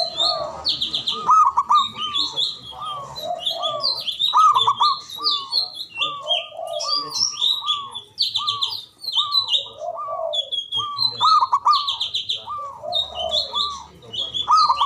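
Zebra dove (Javan perkutut) cooing in a long run of short hooked notes repeated again and again. Other small birds chirp quickly at a higher pitch over it.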